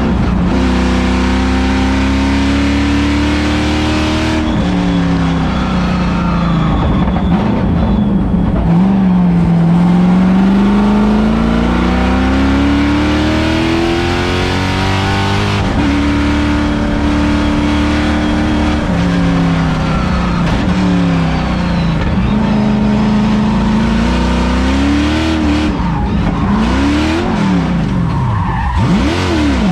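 LS3 V8 engine of a race-prepared Mazda Miata at track pace, heard from inside the cabin. Its pitch climbs steadily in a long pull about ten seconds in, holds, then drops in steps around twenty seconds. It rises and falls quickly several times near the end.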